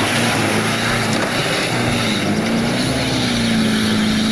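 Fuel tanker truck's engine running under load as it drives through deep mud, with a dense rushing, splashing noise from the mud and water. The engine note dips and rises slightly about two seconds in, then holds steady.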